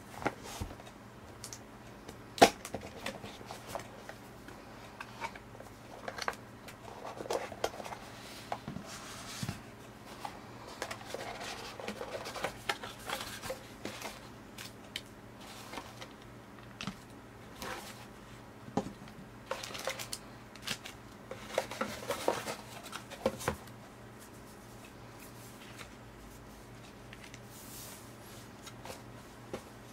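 A cardboard smartphone box and its packaging being handled and unpacked by hand: scattered taps and knocks, sliding cardboard, and rustling paper and plastic. There is a sharp knock a couple of seconds in, and it is quieter over the last few seconds.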